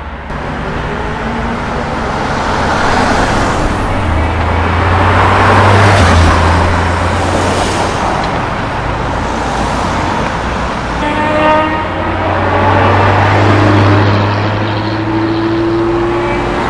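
Porsche 991.2 GT3's naturally aspirated flat-six accelerating away, growing loudest about six seconds in. It is followed by a Jaguar F-Type pulling away, its engine note climbing in pitch near the end.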